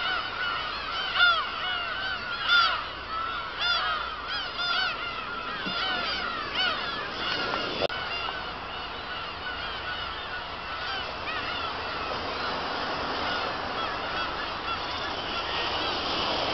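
A colony of black-tailed gulls calling: many short, cat-like cries overlapping. About eight seconds in, the calls thin into a denser, less distinct background chorus.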